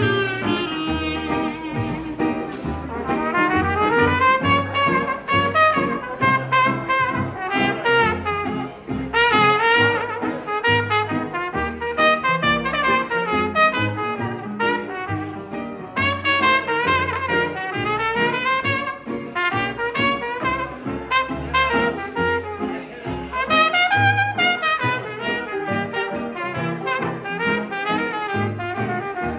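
Small traditional jazz band playing live. Horn melody lines weave up and down over an even, steady pulse of low bass notes from the rhythm section.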